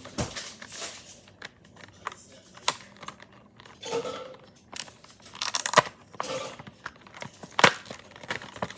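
Plastic packaging crinkling and being torn open, with scattered sharp clicks and taps through it.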